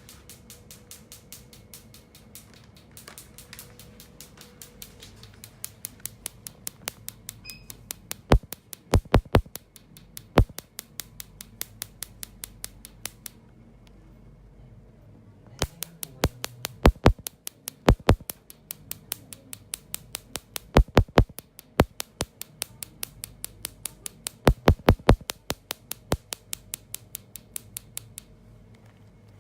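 Laser handpiece firing pulse after pulse in a carbon laser peel: rapid, evenly spaced sharp snaps, about five a second. They come in runs with a short pause near the middle, and some clusters snap much louder than the rest.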